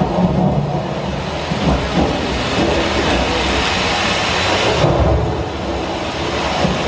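Loud storm sound effect played over a theatre's speakers: a steady rushing of wind over a deep rumble, the hiss thinning about five seconds in.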